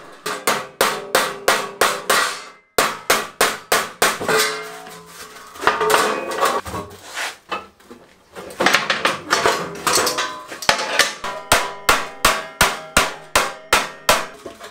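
Rapid hammer blows on thin sheet steel, about three a second, each with a metallic ring, as the edges of a steel tray are folded over. The strikes break off briefly a few times.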